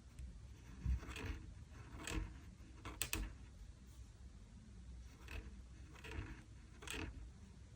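A pen or marker drawing short strokes on paper: six or seven brief scratches, roughly one a second.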